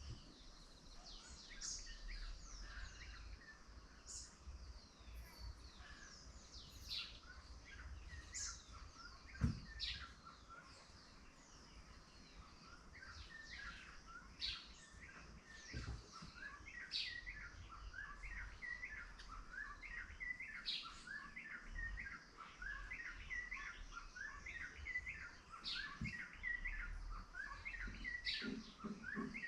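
Several small birds chirping, many short high chirps overlapping, growing into a rapid run of repeated chirps in the second half. A low background rumble lies under them, and a single sharp knock comes about a third of the way in.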